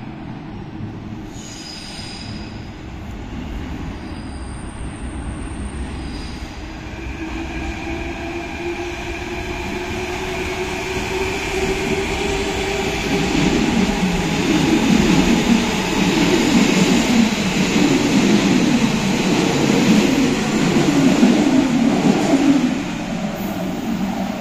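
Athens Metro second-generation train approaching out of the tunnel and running through the station without stopping. A hum rises steadily, with faint high squeals a few seconds in. It grows into the loud rumble and clatter of the cars passing close for several seconds, which drops off suddenly near the end as the train clears the platform.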